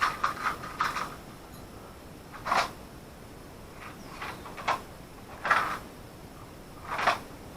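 Small crimp wire terminals and their container being handled and sorted: about five short rattles and scrapes, a second or two apart.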